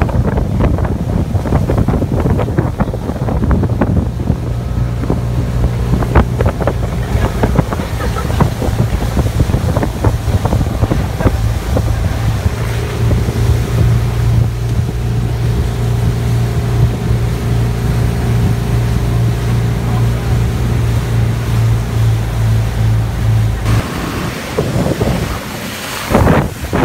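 Boat motor running steadily at speed while towing, with wake water rushing and wind buffeting the microphone. Near the end the motor hum cuts off abruptly, leaving wind and splashing water.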